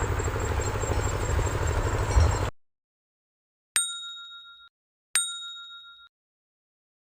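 Two identical bright ding chimes about a second and a half apart, each dying away over about a second, after a steady pulsing low rumble cuts off abruptly into silence. The chimes match exactly and sit in dead silence, like a sound effect added in editing.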